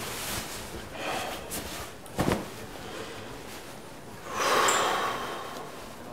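Fabric rustling and handling noises as a black suit jacket is put on and buttoned. A single sharp knock comes about two seconds in, and a louder rushing noise follows around four and a half seconds in.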